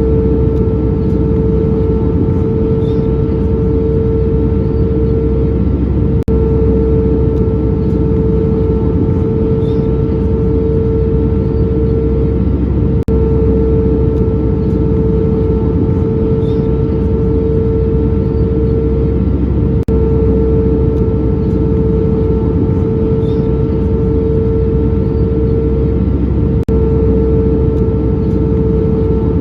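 Steady noise of a Boeing 737 airliner's jet engines: a loud, even rush with a constant hum, broken by a brief click about every seven seconds.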